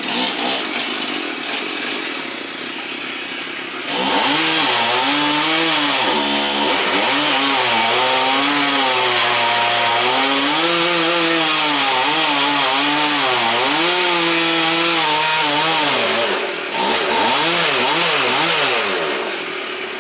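Chainsaw cutting wood: the engine pitch repeatedly sags and recovers as the saw loads up in the cut, starting about four seconds in, with a few quick rises and falls near the end.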